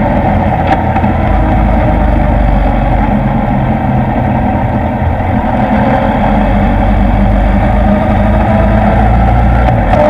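Motorcycle engine running steadily at a constant cruising pace while riding, with wind noise over the microphone.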